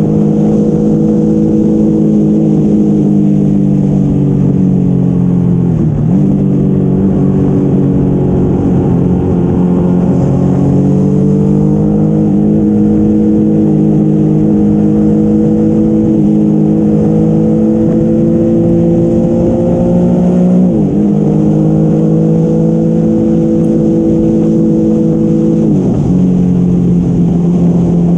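Yamaha XSR motorcycle engine running steadily at highway speed, with wind noise rumbling across the microphone. Three times, about 6, 21 and 26 seconds in, the engine pitch drops sharply and then climbs back.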